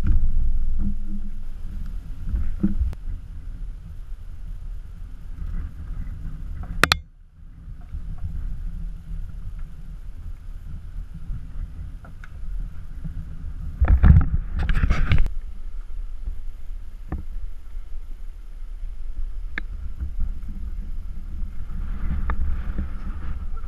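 Wind buffeting an action-camera microphone as a steady low rumble, with a few scattered knocks and a louder cluster of knocks and rustling about two-thirds of the way through.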